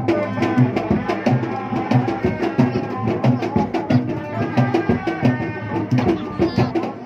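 Sundanese Reak music played live, drums beating a fast, steady rhythm under pitched instrument lines.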